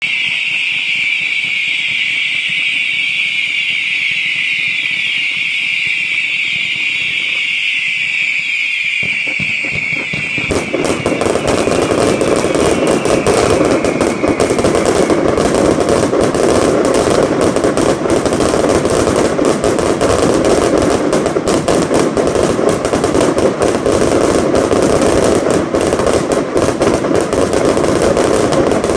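Fireworks: a ground fountain throwing up sparks with a steady high hiss, then, about ten seconds in, a dense unbroken barrage of rapid bangs and crackling takes over and keeps going.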